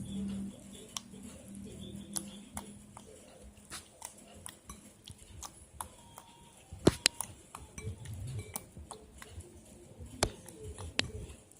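Irregular light clicks and clinks of hard objects being handled, the sharpest about seven seconds in: utensils and containers knocking together while making slime.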